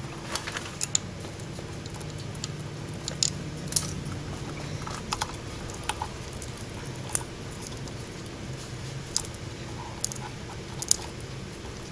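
Scattered light clicks and handling noise as a rubber U-joint bellows is worked by hand onto a MerCruiser Bravo gimbal housing, over a steady low hum.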